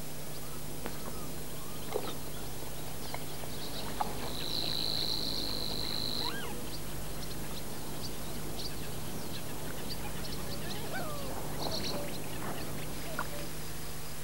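Outdoor nature sound of scattered bird calls and short chirps, with a high, even buzzing trill for about two seconds near the middle. Under it runs a steady low hum and hiss from the old VHS tape recording.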